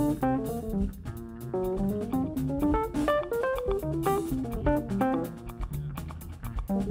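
A live jazz band playing: a fast, busy single-note melodic line over a walking low bass line and drum and percussion hits.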